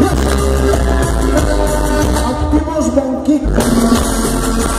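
Dance music played loud through a large sound system, with heavy bass; the bass drops out for a moment about three seconds in, then comes back.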